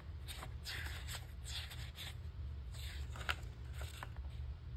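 A page of a picture book being turned by hand: paper rustling in a series of short swishes and crinkles over about four seconds.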